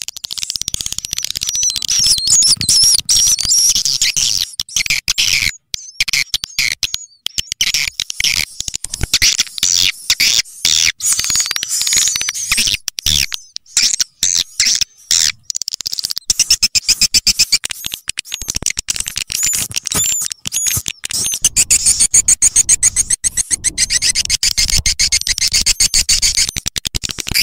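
Swiftlet call lure track: dense, high-pitched swiftlet chirping and rapid stuttering twitters. From about halfway on, a fast run of repeated rising-and-falling chirps comes in, loudest a little after that.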